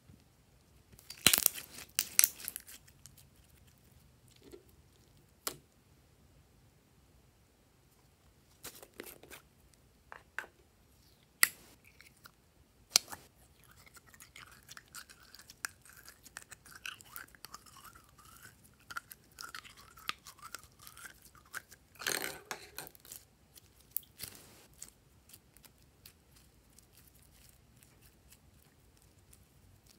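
Slime being squeezed and worked by hand, making sticky crackling clicks and squelches in scattered bursts. A longer squishy stretch comes midway, as glittery orange slime is squeezed out of its container.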